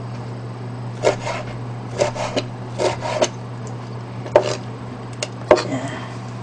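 Kitchen knife slicing peeled squid into long strips on a cutting board: a series of short knife strokes, each ending in a knock on the board, in uneven clusters of two or three, with the sharpest knocks about four and five and a half seconds in.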